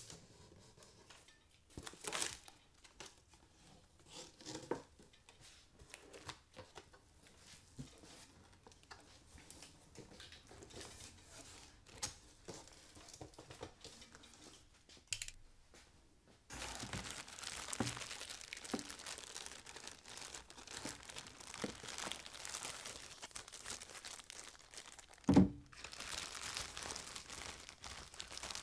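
Cardboard box being opened by hand: a box cutter slitting packing tape, with scattered scrapes and taps of the cardboard flaps. From about halfway, continuous crinkling of plastic packing material being handled, with one sharp thump near the end.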